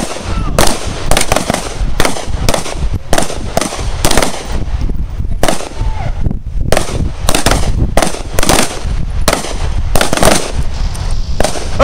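Several pistols firing on an outdoor range: an irregular string of loud single shots from a line of shooters, about two a second, overlapping at times.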